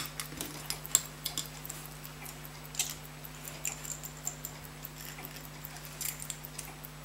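Small sharp metal clicks and light scrapes of a fine steel tool working at an Elgin pocket watch mainspring barrel, coming irregularly with a few louder ticks, over a steady low electrical hum.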